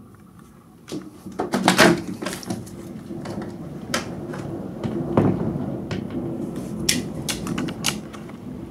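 A window being opened: a run of knocks and clatter from the handle and frame, the loudest about two seconds in, while the noise of the storm outside swells in much louder.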